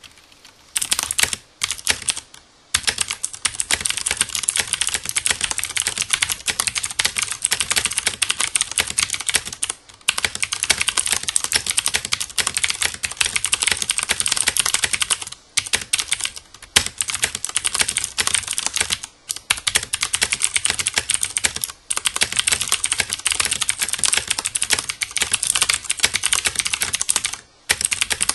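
Fast continuous typing on a Filco Majestouch 2 mechanical keyboard with clicky Cherry MX Blue switches and doubleshot ABS keycaps: a dense run of sharp key clicks, broken by brief pauses every few seconds.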